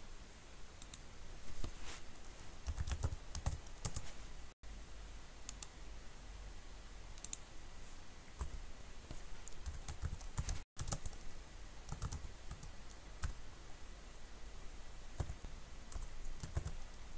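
Typing on a computer keyboard: irregular runs of keystrokes with short pauses between them. The sound cuts out completely for an instant twice.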